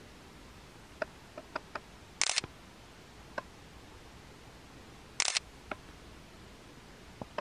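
Camera shutter sounds: two quick shutter clicks, each a short double-click, about two and five seconds in, with a few faint small clicks between them.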